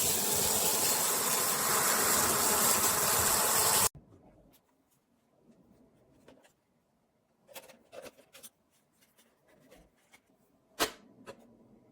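Toshiba Torneo VC-CLS11 cordless stick vacuum running with a steady high whine, then switched off and cutting out abruptly about four seconds in. Afterwards a few faint clicks and handling knocks, with one sharper click near the end.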